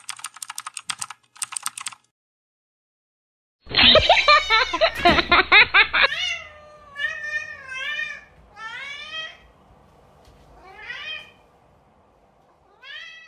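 Rapid typing-like clicks for the first two seconds, then, after a short silence, a cat meowing several times with long, wavering meows, the last one rising near the end.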